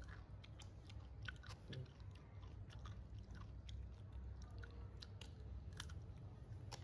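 A baby macaque biting and chewing a biscuit: faint, irregular little crunches and clicks.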